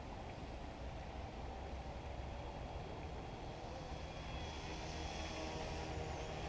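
Yu Xiang UH1 Huey remote-control helicopter in flight, a faint thin wavering whine of its motors and rotors that grows louder about four and a half seconds in, over a low steady rumble.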